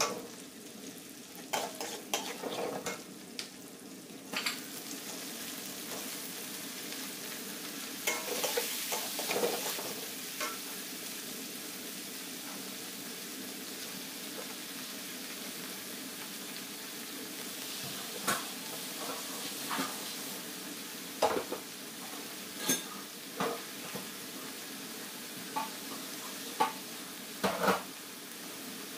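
Sliced green chilies and chopped aromatics sizzling in hot oil in a large wok, stir-fried with a metal spatula. The spatula scrapes and clacks against the wok every few seconds, with a run of sharp clacks in the second half.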